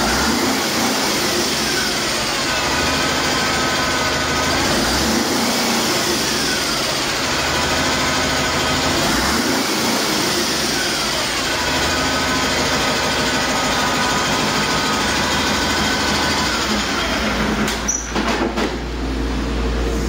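2004 Cummins ISX EGR inline-six diesel engine running on a test stand, its speed dropping away and picking up again a few times. Near the end there is a short clatter of sharp clicks. The engine is described as running excellent.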